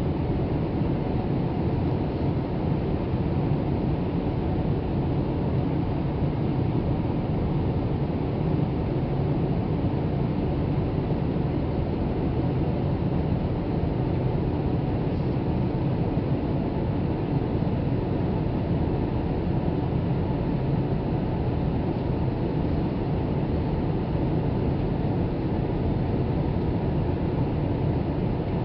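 Steady, low cabin noise of a Boeing 787 Dreamliner in cruise, engine and airflow noise heard from a window seat inside the cabin.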